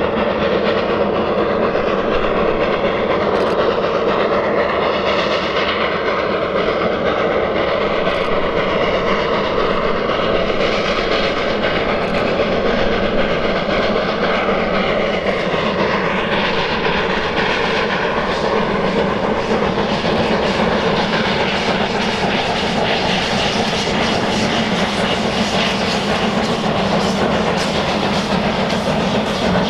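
Train running along the track: a steady rolling rumble of wheels on rail, with faint tones that slowly drift in pitch.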